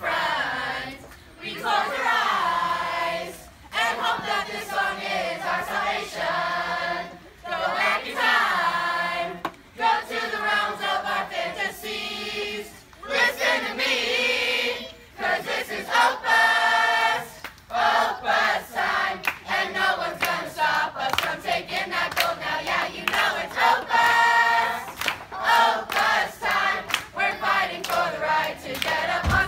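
A large group of children and adults singing a camp song together in phrases, with short breaks between lines.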